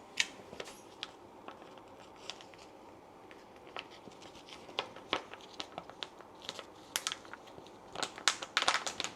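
Faint, scattered clicks and light scraping of a utensil as ginger garlic paste is added to a bowl of mashed vegetables, the clicks coming faster near the end.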